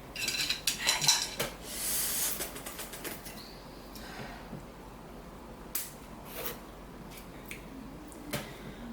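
Close-up eating sounds from a bowl of ramen: a busy run of small mouth clicks and a slurp in the first few seconds, then a few scattered light clinks of utensils against the bowl.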